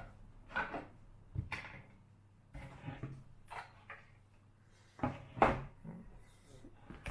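Scattered clicks, knocks and rustling from hands working on the plastic fan housing and wiring of a freezer's recirculation fan motor as it is taken out. The loudest knock comes about five seconds in.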